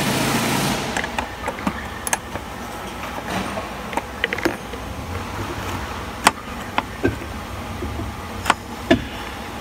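Ring spanner clinking on the bolts of a Toyota Avanza's back-door latch striker as the two 10 mm bolts are loosened and the striker is pushed forward by hand: scattered sharp metal clicks and taps, about ten in all, with the loudest a little past the middle. A steady rushing noise cuts off just under a second in.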